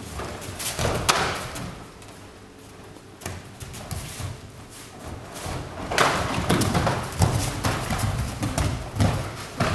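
Irregular thuds and knocks of a karate sparring bout: bare feet stepping and stamping on tatami mats and blows landing on gi and padded gloves, coming thicker near the end as the fighters clinch.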